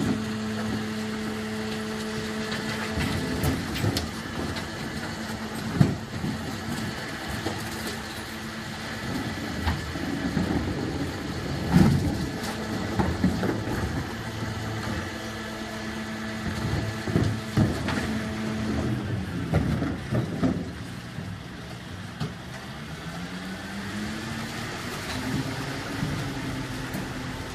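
Scania split-body bin lorry running at a steady drone while its rear lift empties a wheelie bin, with several loud bangs of the bin against the lifter. In the last few seconds the engine note rises as the lorry pulls away.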